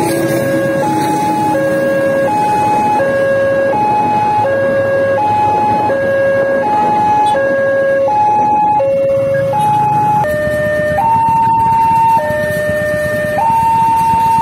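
Railway level-crossing warning alarm: an electronic two-tone signal taking turns between a higher and a lower tone in an even, quick rhythm, over the rumble of a passing train and waiting traffic. About ten seconds in, a slower two-tone crossing alarm takes over.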